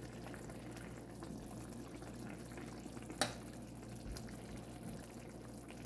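Pot of brown stew chicken simmering, a soft steady bubbling and crackle, with a single sharp click about three seconds in.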